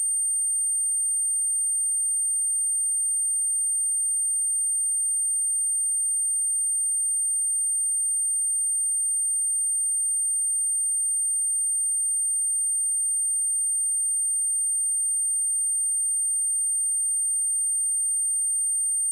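A pure 8784 Hz sine-wave test tone, a single steady high-pitched whine at constant level. It is played as a speaker test and speaker-cleaning tone.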